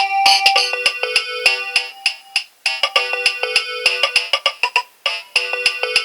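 Nokia 2300 mobile phone playing a ringtone: a fast tune of short electronic notes, several sounding at once, that breaks off briefly and starts over about every two and a half seconds.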